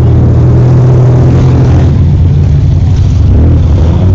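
Off-road 4x4 truck engine running loud and steady, holding an even engine speed.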